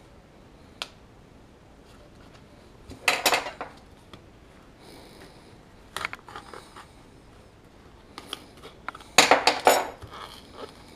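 A kitchen knife scraping and tapping against a plastic spice-rub container while cutting open its seal: scattered clicks, with two louder bursts of rattling scrapes about three seconds in and again near the end.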